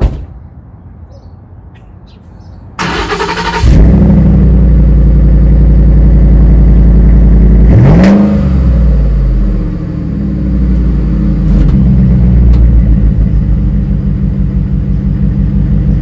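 Ford F-150's 5.0 L Coyote V8 breathing through a Flowmaster 40 Series exhaust: the starter cranks about three seconds in, and the engine catches with a loud flare and settles into a loud, steady idle. About halfway through it is revved once, the pitch rising and falling back to idle.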